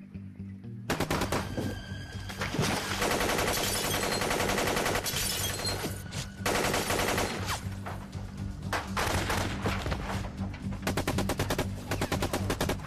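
Rapid bursts of automatic gunfire, breaking out about a second in and running in long volleys with short gaps, over a dramatic film music score.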